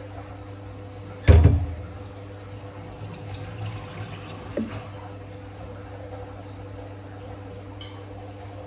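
A glass measuring jug is put down with one loud knock about a second in, followed by a few faint clatters and a smaller knock, over a steady low hum.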